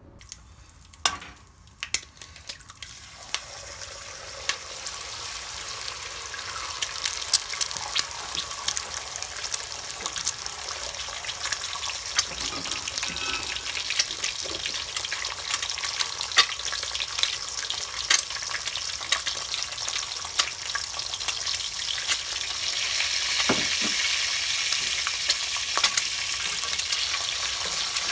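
An egg frying in hot oil in an aluminium pot, sizzling and crackling with many small pops, the sizzle growing steadily louder. A few sharp knocks come near the start.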